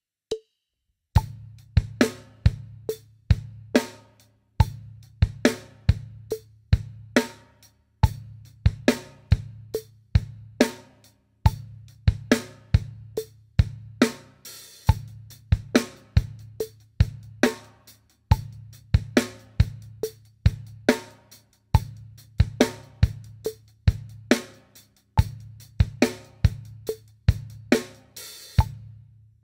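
Acoustic drum kit playing a slow classic rock-pop groove: bass drum on the 1, the "a" of 1, the "and" of 2 and the "and" of 3, snare backbeat on 2 and 4, with the hi-hat in eighth notes and later in sixteenth notes. A few evenly spaced clicks count in before the drums start about a second in.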